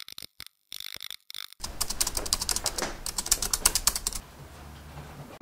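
Rapid typewriter key clicks, about eight a second, as a typing sound effect. They start about one and a half seconds in and stop about four seconds in, leaving a faint low hum.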